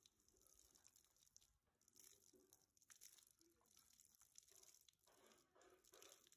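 Very faint, uneven splashing of water poured over hair and running off onto concrete, barely above near silence.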